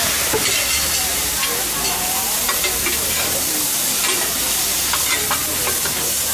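Pad thai noodles sizzling steadily on a large shallow metal pan, with two metal spatulas scraping and clinking against the pan at irregular moments as they toss the noodles.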